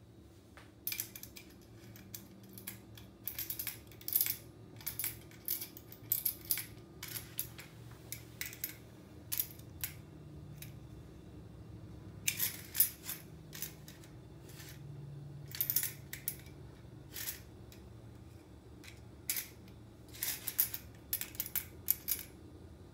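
Metal jingles of a small tambourine rattling in short, irregular bursts as a kitten paws and bats at it.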